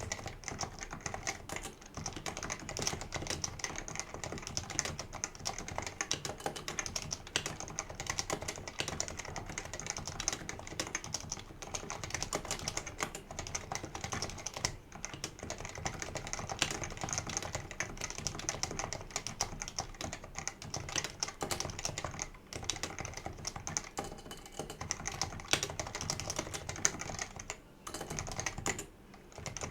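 Continuous fast typing on a Leopold FC660C keyboard with unlubricated Topre electrostatic capacitive switches: a dense, irregular run of keystrokes with a couple of brief pauses near the end.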